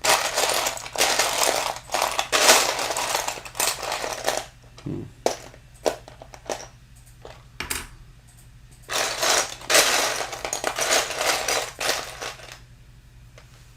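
Loose plastic building bricks rattling and clattering as a hand rummages through a pile of parts: two spells of dense clatter with scattered single clicks between them.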